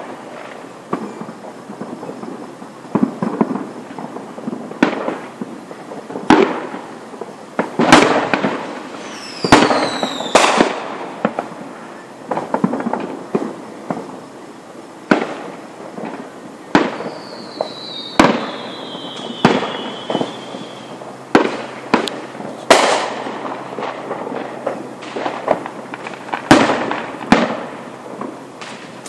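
Aerial fireworks going off, a sharp bang every second or two with rumbling echoes. Several shells whistle with a falling pitch about ten seconds in, and one long falling whistle runs for about four seconds just past the middle.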